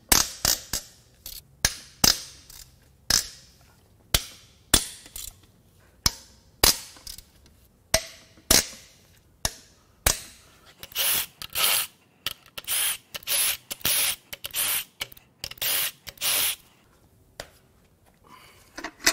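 Tools working on the engine's main cap bolts. First comes a series of sharp metallic cracks about a second apart, then a run of about a dozen short tool bursts, each around half a second long.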